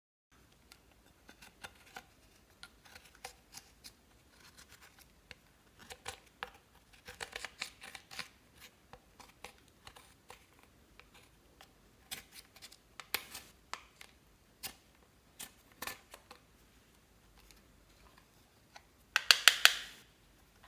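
Slime being kneaded and stretched by hand: scattered sticky clicks and pops, with a quick run of loud pops near the end.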